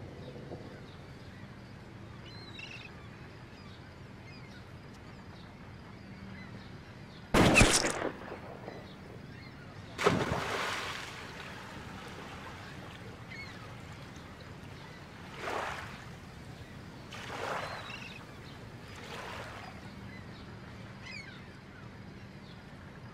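A single gunshot about seven seconds in, followed a couple of seconds later by a second sharp, noisy burst that dies away over about a second, then a few fainter noisy swells, over a quiet outdoor background with faint bird calls.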